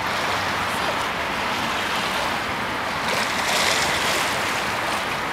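Steady rush of small waves washing onto a sandy beach, mixed with wind on the microphone, swelling slightly a little past halfway.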